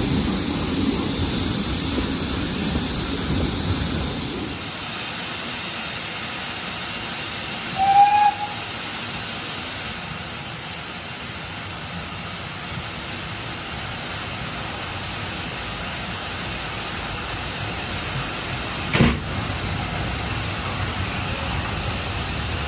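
Heritage steam train running slowly and coming to a stand, its low rumble dying away about four seconds in, then a steady hiss of steam from the standing steam locomotives. A short steam-whistle toot about eight seconds in is the loudest sound, and a single sharp knock comes near the end.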